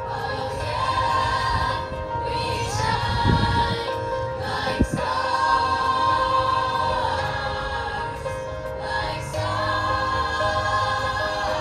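Choir singing in long held, sustained chords, with a couple of brief low bumps in the middle.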